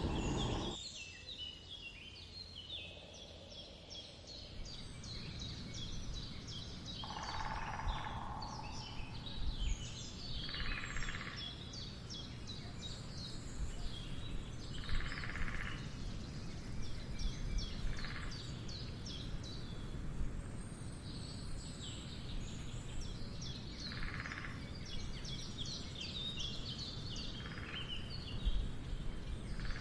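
Woodland bird chorus, with many small birds chirping and calling throughout. Short bursts that fit woodpecker drumming recur about six times, every few seconds. A low rumble cuts off within the first second.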